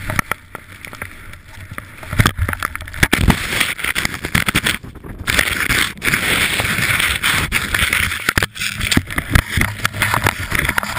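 Wind buffeting a helmet-mounted camera microphone during a run through deep powder snow, a loud, rough rushing full of crackles, breaking off briefly twice.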